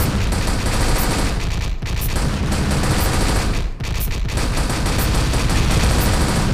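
Sustained rapid machine-gun fire, a dense unbroken fusillade that dips briefly twice.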